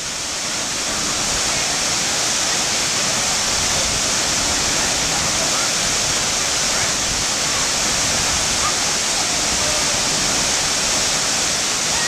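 Waterfall pouring into a rock plunge pool: a steady, loud rush of falling water.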